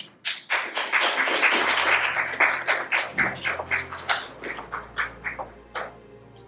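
Applause from a small group: dense clapping for the first few seconds, then thinning to scattered claps that die away near the end.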